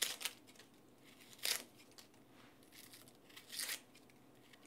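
Dry onion's papery outer skin being peeled off, giving three short, faint tearing sounds spaced a second or two apart.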